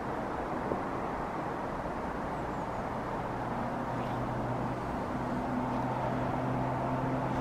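A distant engine drone: a low steady hum that comes in about three seconds in and slowly grows louder, over a steady outdoor hiss.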